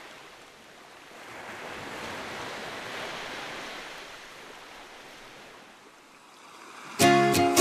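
Sea wash of small waves at the shore, a soft hiss that swells and fades. A ukulele tune starts suddenly near the end and is louder than the waves.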